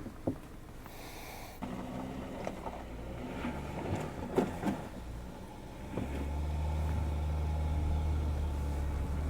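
Suzuki Jimny engine working under load while climbing a muddy bump, with a few knocks about four seconds in. The engine pulls harder and louder from about six seconds in.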